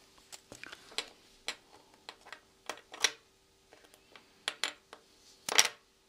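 Light, irregular metallic clicks and taps of a small screwdriver working against a metal wallet frame as it is pressed into place, with a louder clack near the end.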